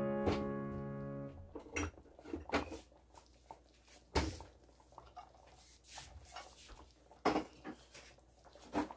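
The last held piano chord of background music fading away over the first second or so, followed by scattered light knocks and clicks, the strongest about four seconds in and again about seven seconds in.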